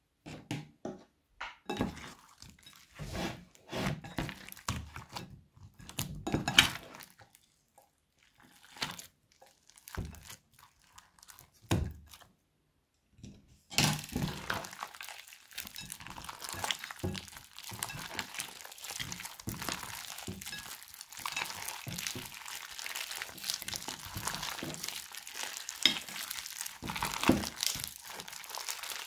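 Hands squishing slime, clay and foam beads in a glass bowl. For the first half there are separate short squishes, then after a brief pause comes a continuous crackling, squelching sound as everything is kneaded together.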